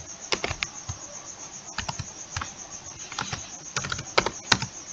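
Computer keyboard keystrokes in short irregular runs as a line of code is typed, over a steady high-pitched hiss.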